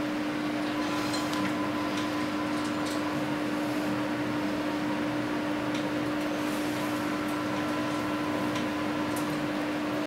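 Steady fan-like hum with a constant low tone beneath an even whir, and a few faint light clicks.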